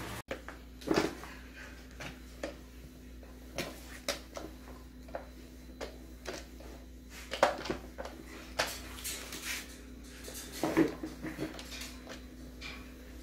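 Spin mop being worked over a dog crate's floor tray: scattered knocks and clatters as the mop head and handle bump the tray and the wire crate, three of them louder, over a steady low hum.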